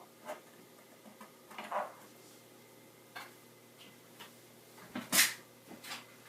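Scattered light clicks and knocks of hands handling the computer and its accessories, with one louder knock about five seconds in.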